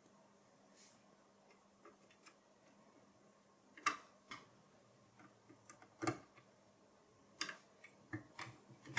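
A few sparse, short clicks and taps of an M.2 NVMe SSD being inserted into its slot and pressed down onto a mini PC's motherboard, the clicks coming closer together near the end; otherwise very quiet.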